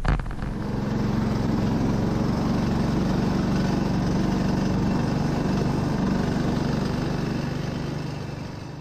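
Small off-road vehicle's engine running steadily while it drives along a rough forest track, heard from aboard, fading out near the end.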